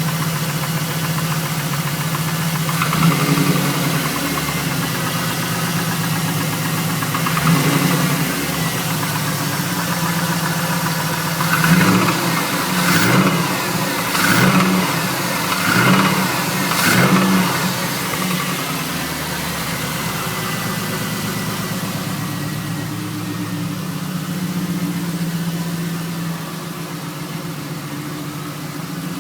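Chevrolet Camaro SS's LS1 V8 idling and revved in short blips, two single ones and then five in quick succession before settling back to idle, with a knock from a spun number-three connecting-rod bearing.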